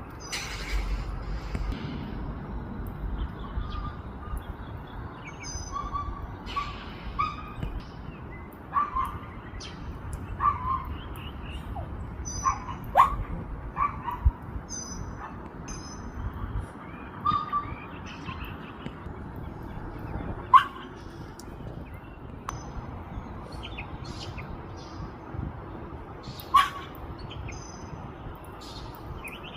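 A dog barking off and on, with the sharpest, loudest barks about 13, 20 and 26 seconds in, while small birds chirp in short high calls over a steady low background noise.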